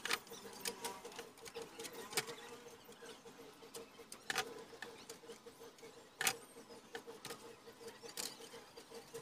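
Scissors snipping through a plastic water jug: sharp, irregular snips about one every second or two, with a faint steady hum underneath.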